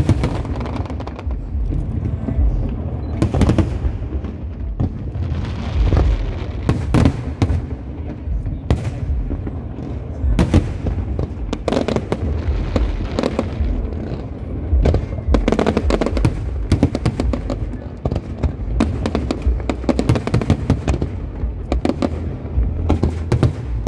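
Fireworks display: a continuous barrage of aerial shells launching and bursting, with many sharp overlapping bangs over a steady low rumble.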